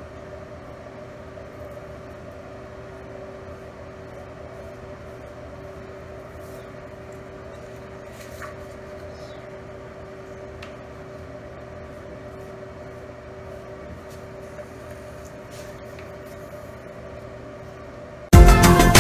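A steady low room hum carrying two faint steady tones, with a few faint clicks. Loud music comes in shortly before the end.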